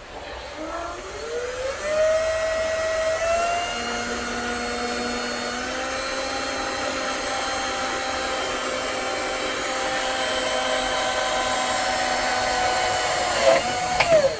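Cordless drill driving a self-drilling screw through a cable ring terminal into an aluminium solar-panel frame. The motor whine rises in pitch as it speeds up, holds steady for about eleven seconds while the screw cuts in, then wavers with a few sharp clicks near the end as the drill stops.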